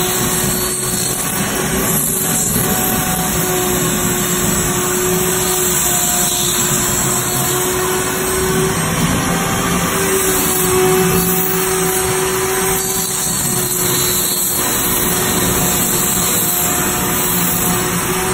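Handheld electric power tool running steadily as it shapes pink rigid foam, a continuous motor whine with a slight wander in pitch over a broad grinding hiss.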